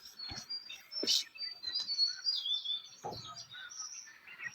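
Several songbirds chirping and singing together, with many short, high whistled notes overlapping, and a lower call about three seconds in.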